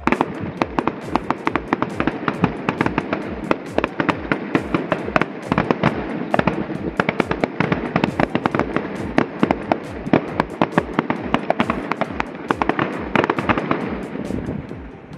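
Aerial fireworks going off in a dense barrage: many sharp cracks and pops follow each other several times a second, easing slightly near the end.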